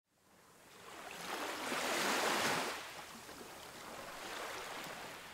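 Waves washing in over a rocky shore: one swell of surf that builds and peaks about two seconds in, then fades, followed by a softer second wash near the end.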